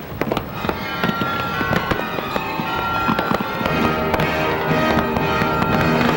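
Aerial firework shells bursting in quick succession, a dense run of sharp reports. Music with held notes plays underneath and grows more prominent in the second half.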